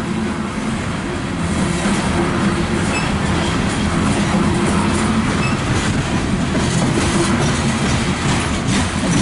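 Loaded coal cars of a freight train rolling past at close range: a steady rumble of steel wheels on rail with clickety-clack over the rail joints.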